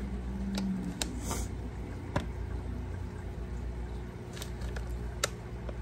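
Quiet kitchen room noise: a steady low hum with a few light clicks and taps scattered through.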